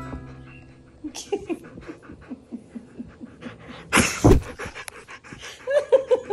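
Siberian husky panting quickly right at the microphone, with a loud scuffing burst about four seconds in and a few short whining calls near the end.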